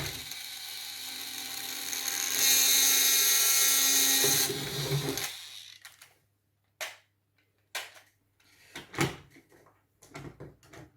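Small battery-powered motor and plastic gearbox of a Gorilla Zord toy whirring noisily as it drives the arms, growing louder in the middle and winding down a little past halfway. A few sharp clicks follow.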